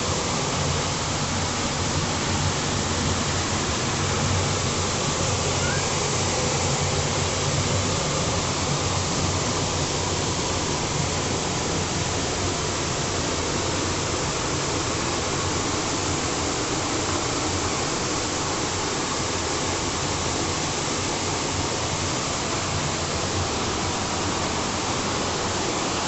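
Waterfall: water pouring and crashing in a steady, loud roar of white noise.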